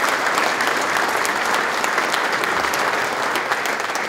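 Audience applauding steadily, a dense patter of many hands clapping that begins to ease near the end.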